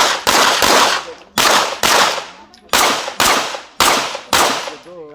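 A Glock 34 Gen 4 9 mm pistol firing about ten rapid shots, in short strings roughly half a second apart, each with a sharp crack and a short echoing tail.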